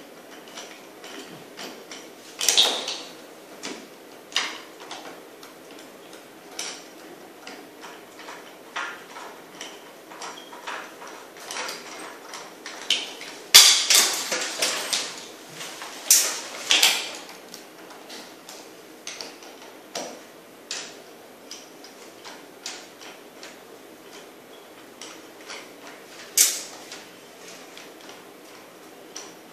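Bolts being hand-driven into toggle drywall anchors through a metal swivel wall plate: irregular light clicks and ticks of the hand tool and hardware, with a few louder metallic clatters, once about two seconds in, a cluster about halfway through and one near the end.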